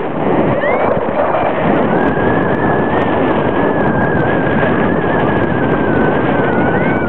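Airflow rushing over the microphone of a camera mounted on a paraglider harness in flight, a steady loud buffeting hiss. About two seconds in a thin steady high tone joins it and sags slightly in pitch near the end, and there are one or two short rising chirps.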